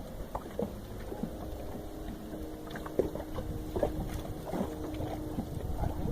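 Wind rumbling on the microphone in a small open boat, with water lapping and irregular light knocks against the hull. Faint steady hums run underneath.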